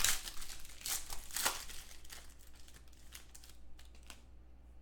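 Foil wrapper of a trading-card pack crinkling as it is torn open and crumpled by hand, in quick bursts for about two seconds, then dying down to a few faint crinkles.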